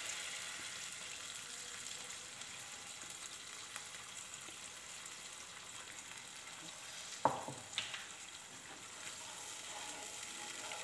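Hot oil tempering with mustard seeds, cumin and green chilli sizzling softly in a nonstick pan as thin wheat-chick batter is poured in, and a wooden spatula starts stirring near the end. A brief falling squeak stands out about seven seconds in.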